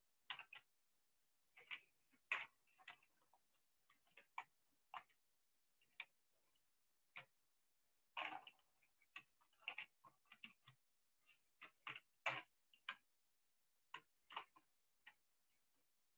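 Faint, irregular clicks and taps at a computer: keys and mouse buttons pressed in uneven short runs, a click or two at a time with pauses between.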